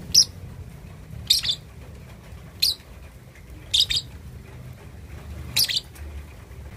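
A young lovebird, about two and a half months old, giving short, sharp high-pitched chirps, five of them roughly a second apart: a juvenile practising its first song calls. A steady low hum underlies the calls.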